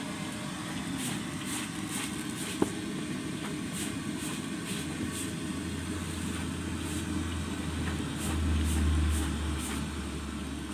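Low engine rumble of a motor vehicle, coming in about halfway and swelling briefly before easing off, over steady background noise with one sharp click.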